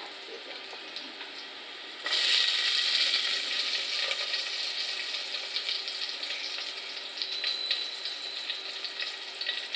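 Garlic frying in hot oil in a stainless steel pot, sizzling. About two seconds in the sizzle jumps suddenly louder as more garlic goes into the oil, and it then runs on as a steady hiss with many small crackles.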